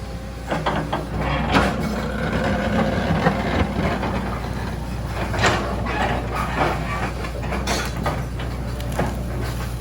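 Backhoe's diesel engine running with a steady low drone, overlaid by irregular clanks and clatter of the bucket working rocks and dirt.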